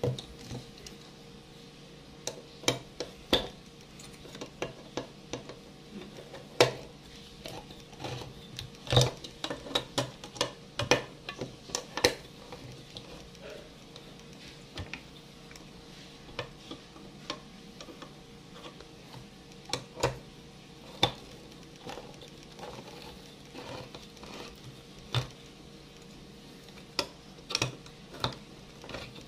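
Handheld crank can opener working on a steel milk tin: irregular sharp metallic clicks and knocks as it is clamped on and turned around the rim, with clusters of clicks about a third of the way in and near the end.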